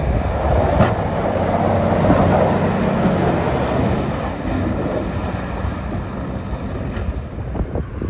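Diesel engine of a dump-truck snowplow with front and wing plows running as it drives past and pulls away, easing a little after about four seconds, with wind buffeting the microphone.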